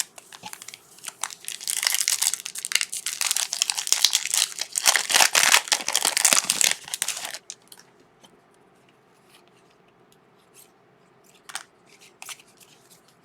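Trading card pack wrapper being torn open and crinkled for about six seconds, stopping abruptly, followed by a few faint clicks as cards are handled.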